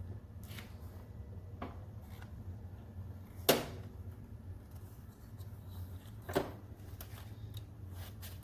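Two sharp knocks, the louder one about three and a half seconds in and a softer one near six and a half seconds, with a few faint ticks over a steady low hum.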